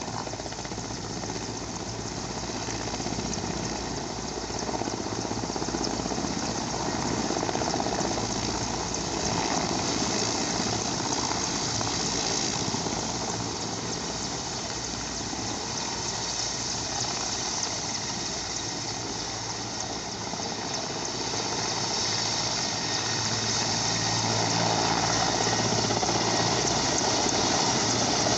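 Helicopter engine and rotor running steadily, building gradually louder as it spools up for takeoff.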